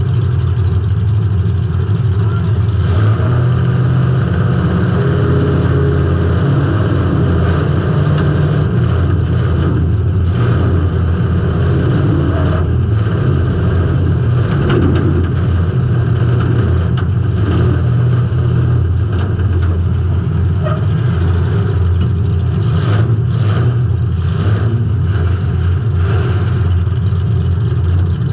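Demolition derby car's engine running loud and hard, heard from the onboard camera inside the car, with a few short knocks along the way.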